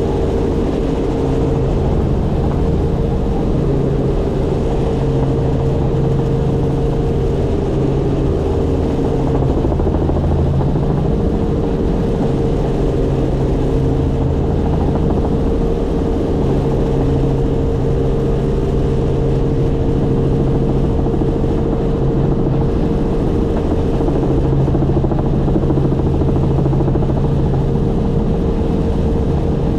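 Helicopter in flight: a loud, steady drone of engine and rotor with a constant low hum and a higher steady tone, unchanging throughout.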